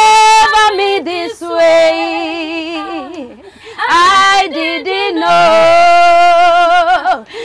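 Two women singing a gospel song together without accompaniment, holding long, wavering notes, with a short breath pause about three seconds in before the singing picks up again.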